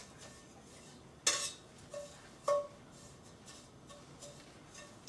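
A metal utensil clinking against a stainless steel frying pan. There is a sharp clink with a short metallic ring a little over a second in, a softer one, and another sharp clink about two and a half seconds in, then a few faint taps.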